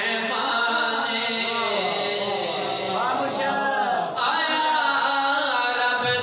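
Devotional vocal chanting in the style of a qaseeda or manqabat: a voice holding long, wavering, sliding notes.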